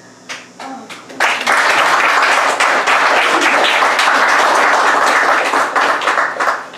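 Small audience applauding: a few scattered claps in the first second, then steady clapping from about a second in that tails off near the end.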